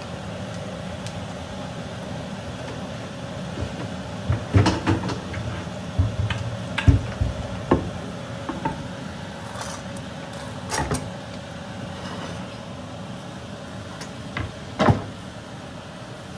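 Kitchen handling noises: a spoon tapping and scraping in a container of guacamole, a wooden cutting board and utensils knocking on a stone counter, and a tortilla in a skillet being handled. The sharp knocks and clicks come in short clusters, loudest a few seconds in, over a steady background hum.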